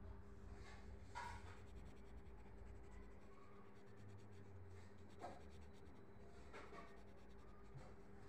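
Colored pencil scratching faintly on paper in a few short strokes, over a low steady hum.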